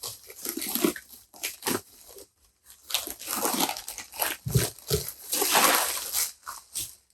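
Newspaper wrapping rustling and crinkling as it is pulled off a camera, with a couple of dull knocks partway through.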